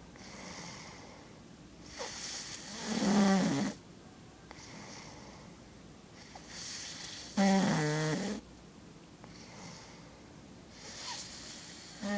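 A person snoring: three loud snores with a fluttering rattle, about four to five seconds apart, with quieter breaths in between.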